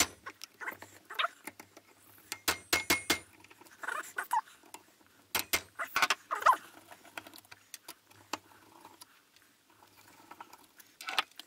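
Sharp metallic clicks and knocks in short clusters, some with a brief ring, as the screws holding a seized alternator's rear cover are worked loose with an impact driver and the metal parts are handled.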